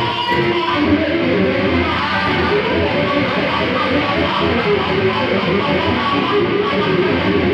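Electric guitar with a Stratocaster-style body playing a busy lead line of quickly changing single notes.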